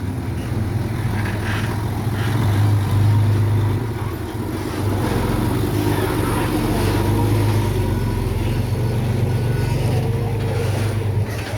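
Heavy diesel engine of earthmoving machinery running steadily with a deep hum, swelling a few seconds in and again midway as it works under load.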